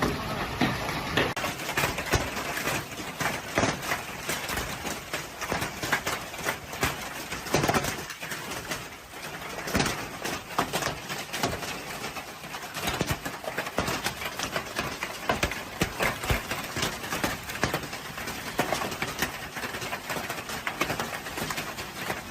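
Severe hailstorm: hailstones pelting hard surfaces in a dense, irregular clatter of sharp impacts over a steady hiss of rain.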